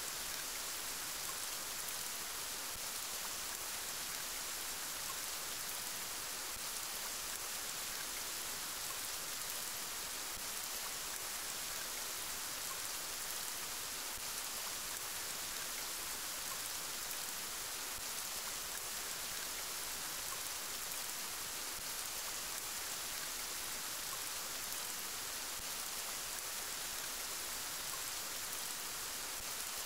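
Steady rain falling: an even, hissy wash of sound that holds level throughout, with no breaks or single loud drops.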